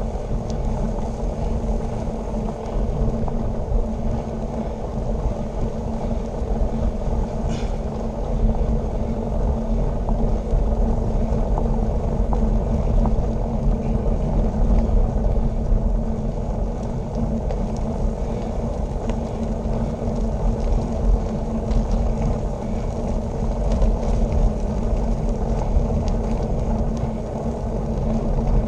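Steady rumble of wind on a handlebar-mounted camera's microphone, together with bicycle tyres rolling on the road at speed.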